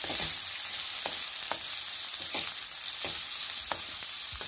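Chicken pieces and freshly added cubed capsicum sizzling in oil in a pan, with a steady hiss. A wooden spatula stirs them, making repeated light scrapes against the pan.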